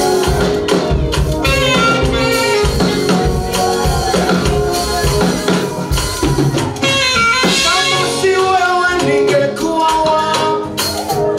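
Gospel praise band playing steadily, with drum kit, guitar and singing.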